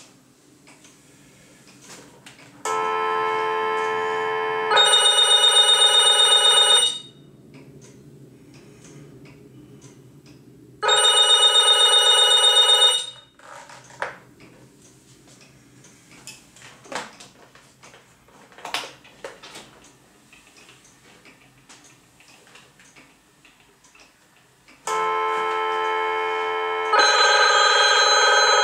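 Electronic landline telephone ringers trilling in bursts of about two to four seconds separated by long gaps, in two different ring tones, a lower one followed by a higher one. A few faint button clicks sound between the rings.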